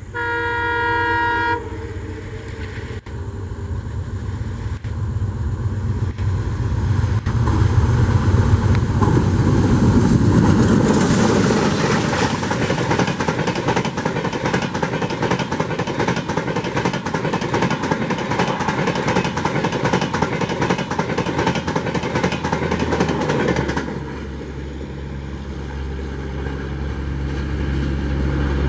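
Twin ALCO diesel locomotives sound a multi-tone horn briefly, then pass at speed with a rising engine rumble. A long run of coaches follows, rushing past with wheels rapidly clicking over the rails. Near the end the sound drops suddenly to a steadier, quieter low rumble of the train going away.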